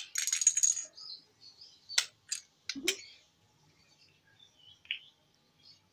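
Small plastic slime containers being handled and their wrapping taken off: a crackly rustle in the first second, then a few sharp plastic clicks about two to three seconds in, then faint fiddling.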